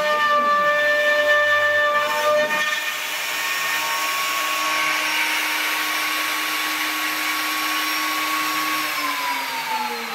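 Router motor on a homemade CNC machine running with a steady high whine, the pitch shifting about two and a half seconds in. Near the end the whine falls steadily in pitch as the router spins down.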